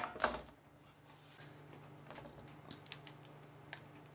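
Metal baking tray of hot baked quinoa bark set down on a gas hob's cast-iron pan grates, clattering twice in quick succession at the start. Then a faint steady hum with a few light ticks.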